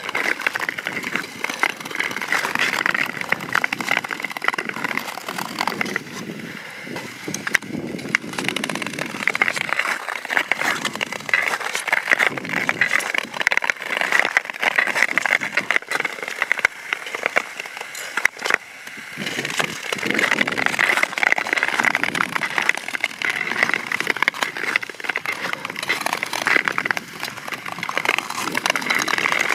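Long-distance (Nordic) skate blades gliding and scraping over frost-covered natural lake ice: a continuous hissing scrape with scattered crackles, growing and fading as the skaters stroke along.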